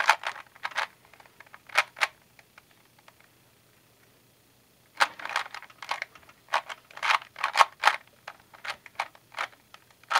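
Plastic Rubik's cube being turned by hand, its layers clicking and clattering as they snap round. A few turns at the start, a pause, then a quick run of turns from about halfway.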